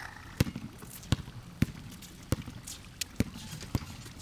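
A basketball being dribbled on pavement, bouncing about seven times at a loose pace of roughly one bounce every two-thirds of a second.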